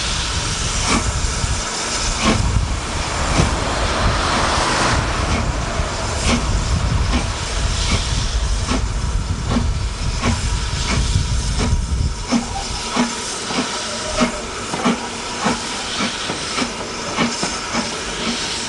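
Steam locomotive hauling a train of coaches past, with a loud hiss of steam for the first few seconds. Then the coaches' wheels click over the rail joints in a steady rhythm, about two clicks a second.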